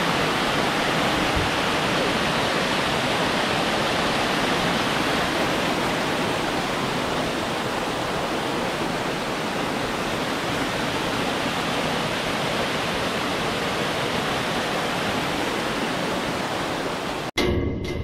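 Small waterfall in a mountain stream rushing steadily over rocks into a pool. Near the end it cuts off abruptly and a short burst of music starts and rings away.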